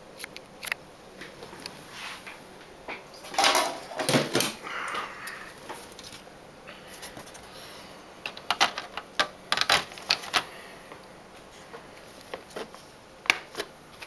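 The plastic bottom cover of a Toshiba C55 laptop being handled and seated on the case: scattered clicks and knocks that come in three clusters, about three and a half seconds in, around nine seconds in, and near the end.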